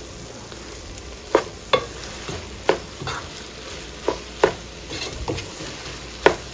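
Okra stew sizzling as it fries in a pot while a utensil stirs it, knocking and scraping against the pot about seven times.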